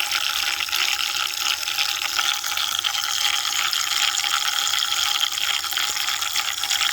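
Water churning steadily in a small battery-powered makeup brush washing machine, its agitator spinning the soapy water around a brush held in it.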